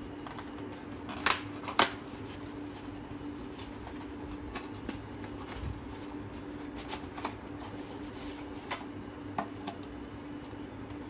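Cardboard packaging being handled as a box is opened and its inner tray slid out: two sharp snaps close together between one and two seconds in, then lighter scattered taps and scuffs of card. A steady low hum runs underneath.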